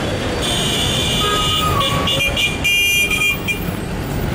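Vehicle horn honking: one long high-pitched toot, then a few short ones, over a steady low rumble of engines and traffic.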